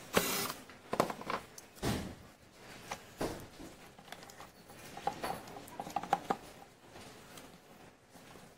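Handling noise from an ILIFE B5 Max robot vacuum's plastic body and battery pack as the cylindrical battery is fitted into its bay: irregular knocks, clicks and rustling. A sharp knock comes right at the start, and a cluster of clicks about five to six seconds in.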